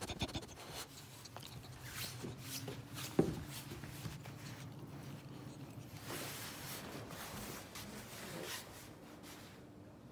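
Rustling and rubbing handling noises with scattered clicks and one sharp knock about three seconds in, over a faint low hum; it gets quieter near the end.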